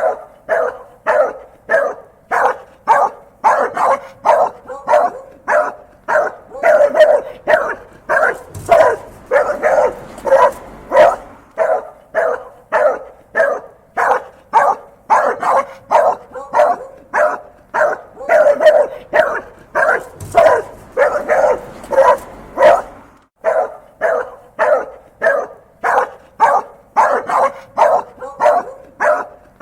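An angry dog barking over and over in a steady, unbroken run of short barks, about two a second.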